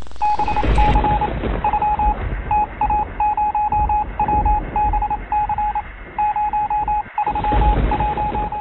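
Morse-code-style beeps, one steady pitch keyed in short and long tones at an irregular rhythm, over a bed of radio static with a low rumble. The sound cuts out briefly about seven seconds in.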